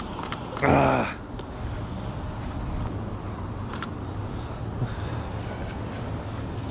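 Steady low city traffic rumble on wet streets, with a brief loud pitched sound, short as a single shout, a little under a second in, and a few sharp clicks.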